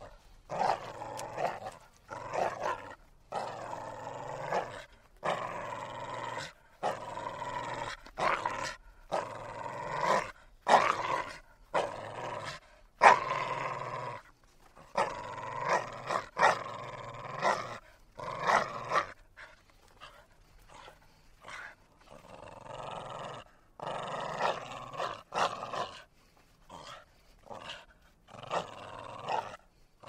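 A dog growling over and over, in a long run of throaty growls each about a second long with short breaks between them. A few growls come out louder near the middle, and the growls go quieter for a few seconds past the two-thirds mark.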